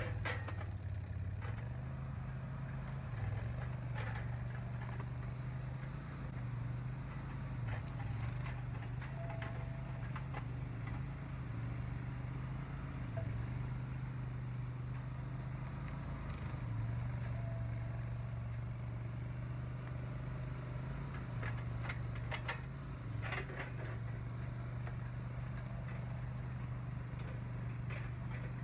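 Boxer 427 skid steer's engine running steadily, its pitch dipping and recovering now and then under load, with occasional clanks and rattles from the machine and its forklift attachment.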